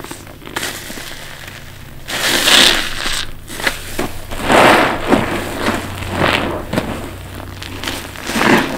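Soapy sponge squeezed by hand several times, a second or two apart, its foam crackling and liquid squelching out with each squeeze.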